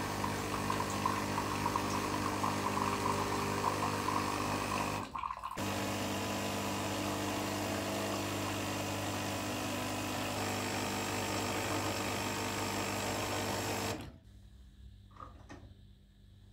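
Small electric kitchen appliance motor running steadily, cutting out briefly about five seconds in, then running again until it stops abruptly near the end.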